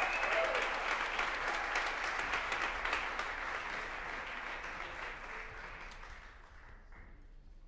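Audience applauding, a dense clatter of many hands clapping that fades away gradually and then cuts off abruptly near the end.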